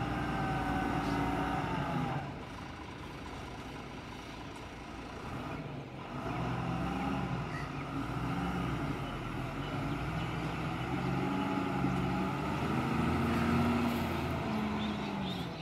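Diesel engine of a loaded Tata 2548 tipper truck revving hard as the truck pulls through soft earth, its pitch rising and falling. It eases off about two seconds in, then builds again to its loudest near the end.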